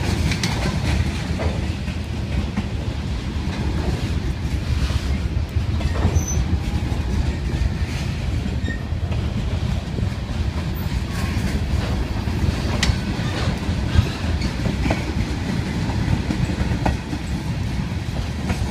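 Freight train cars rolling past at close range: a steady heavy rumble of steel wheels on the rails, with scattered clicks and clanks as the wheels and couplers pass.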